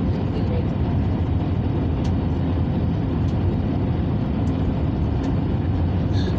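Steady low rumble of engine and airflow noise inside an Airbus A321neo cabin, with a few faint clicks.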